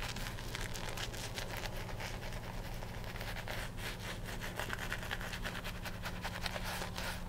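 Shaving brush scrubbing lather into beard stubble: a soft, crackly bristle-on-skin scrubbing made of many fine ticks, over a steady low hum.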